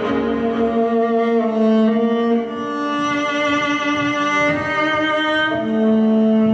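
Slow music of long held notes on bowed strings, violin and cello, changing note every second or two.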